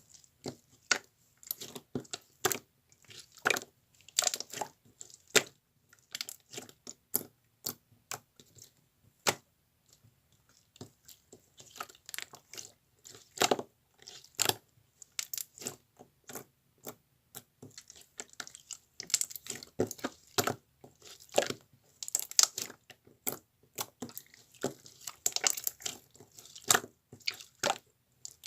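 Close-up crackling and squishing sounds: irregular sharp clicks, several a second, with louder clusters now and then.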